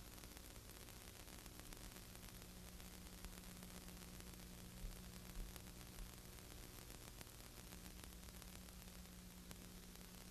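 Near silence: a steady hiss with a low electrical hum, and a few faint low knocks about halfway through.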